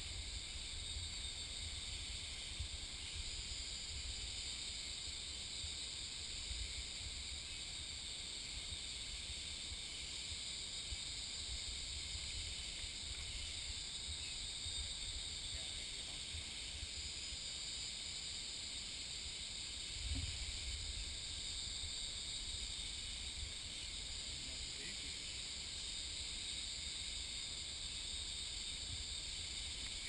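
Steady, high-pitched chorus of rainforest insects, with a low rumble underneath and a soft low bump about twenty seconds in.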